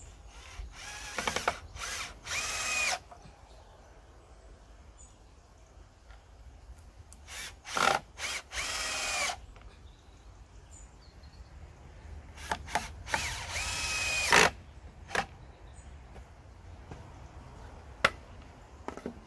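Cordless drill-driver driving screws into pallet wood: three runs, each a few short trigger pulses and then a steady whine of a second or two. A sharp knock near the end.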